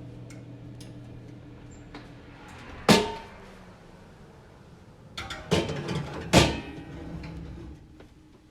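Oven running with a steady hum, with a loud clunk about three seconds in and a cluster of clanks and thuds between about five and six and a half seconds in as the oven door and rack are worked.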